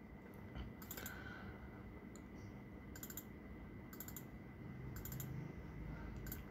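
Faint computer mouse clicks, each a quick pair, about a second apart, over a low steady hiss.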